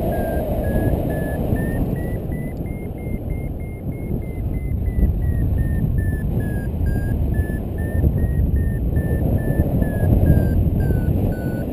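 Paragliding variometer beeping in a steady train of short tones, its pitch rising a little to a peak a few seconds in and then falling back, signalling lift as the glider climbs. Heavy wind rush on the microphone is the loudest sound throughout.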